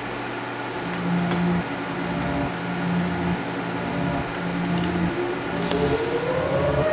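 TIG welding arc buzzing steadily as a steel nut is welded onto a steel turnbuckle tube, in several stretches with short breaks. Over the last couple of seconds a rising tone comes in.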